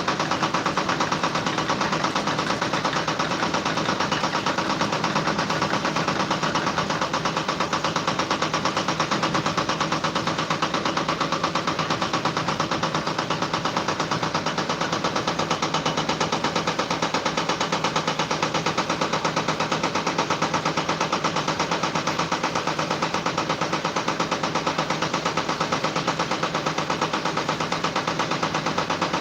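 A steady machine-like sound made of rapid, even pulses that does not change in pace or loudness.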